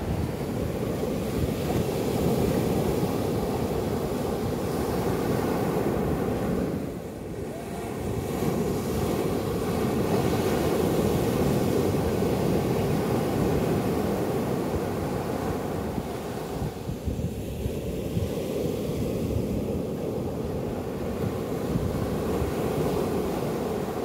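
Small sea waves breaking and washing up a sandy shore: a continuous surf rush that swells and eases, dipping briefly about 7 and 17 seconds in.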